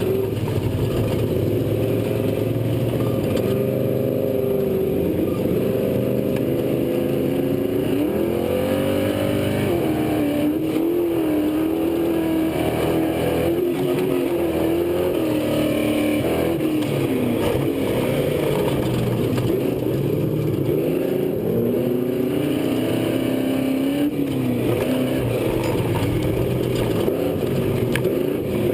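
On-board sound of an off-road race truck's V8 engine running hard, its pitch rising and falling over and over as the throttle is worked.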